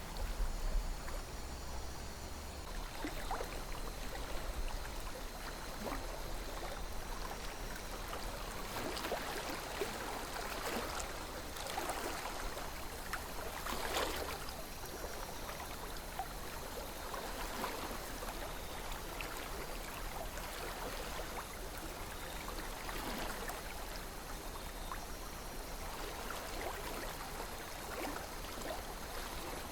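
A calm river flowing: a steady wash of running water with small gurgles and splashes here and there, one a little stronger about fourteen seconds in. A low rumble sits underneath in the first couple of seconds.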